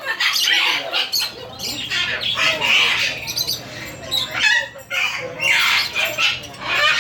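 Parrots squawking, harsh calls repeated one after another with short gaps.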